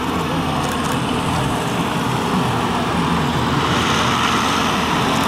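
Light aircraft piston engines and propellers running at taxi power, a steady drone that grows louder about two-thirds through as one plane comes close.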